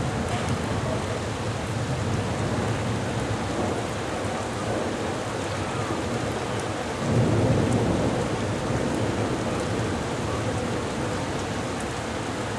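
Heavy rain pouring down in a thunderstorm, with a low rumble of thunder swelling about seven seconds in.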